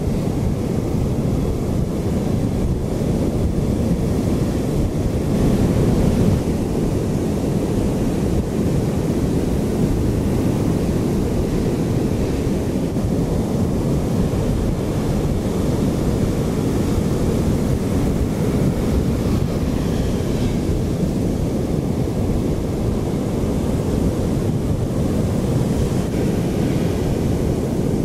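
Caribbean surf breaking on a beach, a steady low wash of waves, with wind blowing on the microphone.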